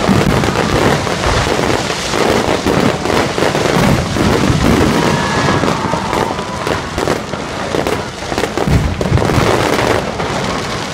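Fireworks display at full intensity: a dense, continuous crackle of many bursting shells and crackling stars, with low booms mixed in.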